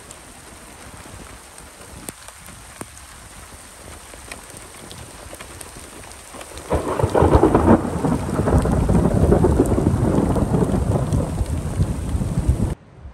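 Steady rain hissing with scattered drop ticks, then about seven seconds in a loud roll of thunder rumbles for about six seconds and cuts off suddenly near the end.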